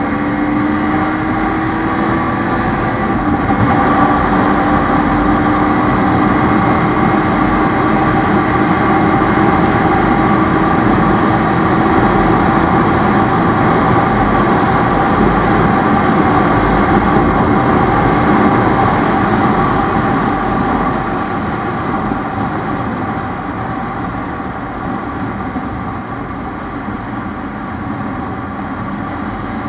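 Bajaj Pulsar NS200's single-cylinder engine pulling hard under acceleration, over a strong rush of wind. The engine note climbs, drops once sharply about three seconds in with an upshift, then climbs slowly again. The overall level eases after about twenty seconds.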